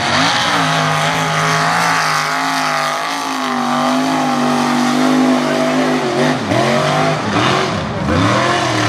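Red Toyota mega truck's engine held at high revs, its pitch wavering slightly as the tires churn through deep mud. About six seconds in, the revs drop and rise again several times in quick blips.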